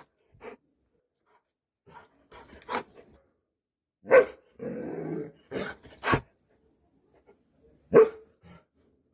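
Doberman barking in short, separate barks, the two loudest about four and eight seconds in.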